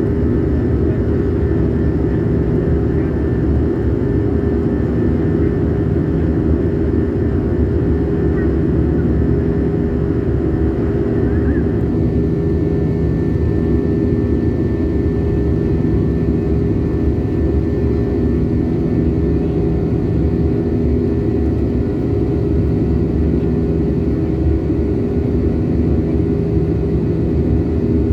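Airliner cabin noise: the steady drone of the engines and airflow heard from inside the cabin, with a low, even hum. About twelve seconds in, the higher part of the sound drops slightly and a thin steady tone remains.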